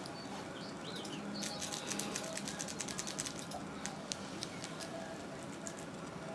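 Faint rapid clicking and rustling from a small cat toy being shaken and waved by hand. The clicks come thick for about two seconds, then thin out. A few faint high chirps sound in the first second.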